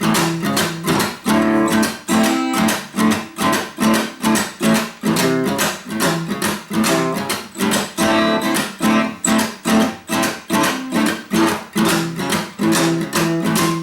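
Acoustic guitar strumming a blues chord pattern in a steady rhythm, about two or three strokes a second, with no singing.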